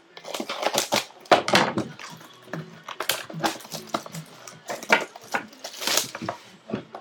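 Plastic shrink-wrap crinkling and tearing in irregular crackles as a box of trading cards is unwrapped and handled.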